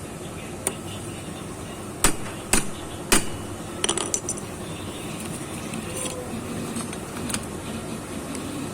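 Metal tools or parts being handled: a few sharp metallic knocks around two to three seconds in, then a brief jingle of clinking metal, over a steady background hum.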